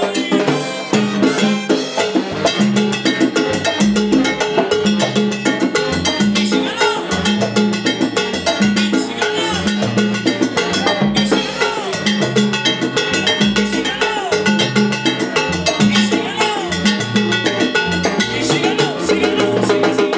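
Live salsa band playing, with saxophone, keyboard and percussion over a repeating bass line.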